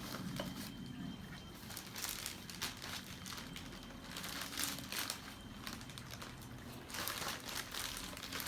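A plastic bag crinkling and rustling as hands handle and open it, in short irregular crackles that grow busier near the end.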